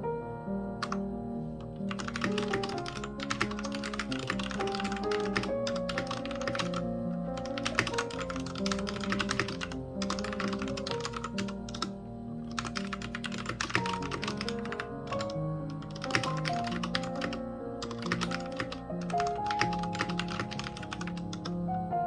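Typing on a Royal Kludge RK61 mechanical keyboard: quick runs of key clicks with short pauses, over background music.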